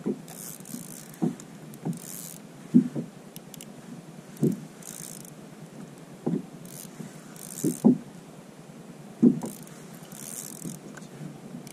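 Small waves slapping against a plastic kayak hull: dull knocks every second or so, with short splashy hisses of water between them.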